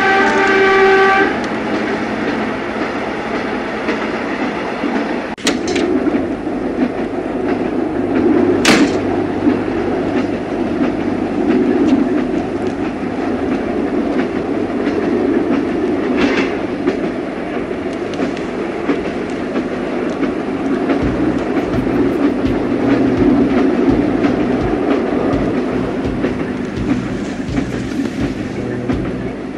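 Passenger train running, its steady rumble heard from inside the carriage, with a few sharp clicks. A held chord of tones, like a horn, cuts off about a second in.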